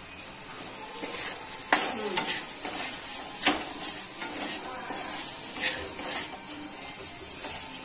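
Chicken filling frying and sizzling in a non-stick pan while a steel spatula stirs it, with sharp scrapes and knocks of the spatula against the pan, the loudest about a second and a half in and another near three and a half seconds.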